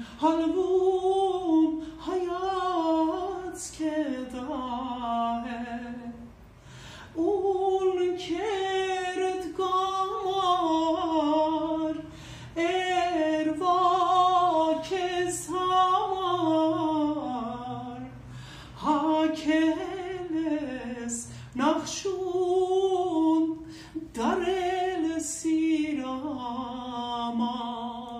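A woman singing an Armenian song unaccompanied, her voice wavering in a vibrato. She sings in phrases of a few seconds, broken by short breaths.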